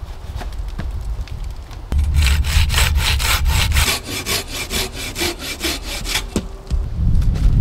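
Hand saw cutting through wood with quick, even back-and-forth strokes, starting about two seconds in and stopping about six seconds in.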